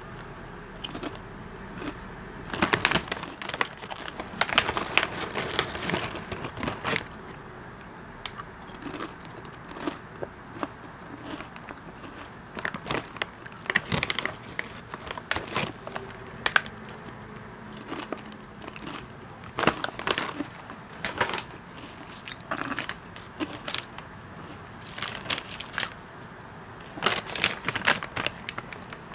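Lay's potato chips crunching as they are chewed close to a clip-on lavalier microphone, in irregular clusters of crisp cracks, with the plastic chip bag crinkling as a hand reaches into it. Near the end a dense run of crinkling as a plastic snack package is handled.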